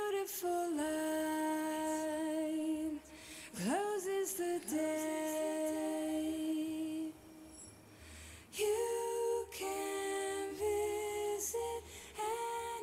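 A woman's voice singing a slow, lullaby-like melody in long held notes, with a quick slide up in pitch a few seconds in.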